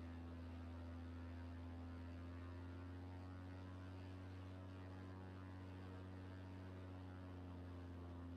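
Cessna 185's engine and propeller running at low power while taxiing, a steady low drone with no change in pitch.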